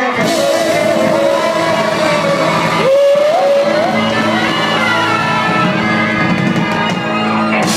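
Live band playing the closing instrumental bars of a Thai pop ballad: steady held chords under a melody line that slides up and wavers about three seconds in.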